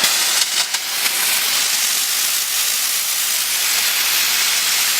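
Steam gun of a diesel-fired mobile steam washing machine jetting steam: a loud, steady hiss, with a few brief flutters about half a second in.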